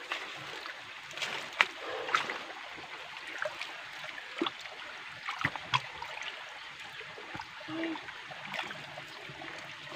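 Shallow creek water running over rocks, with scattered sharp knocks and small splashes about a second in, around two seconds in, and a few more between four and six seconds in.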